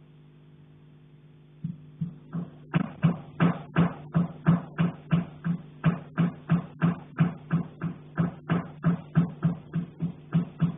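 Someone knocking on a pipe in rapid, regular strikes, about three a second, each with a short low ring. The knocking starts about two seconds in, after a faint steady hum.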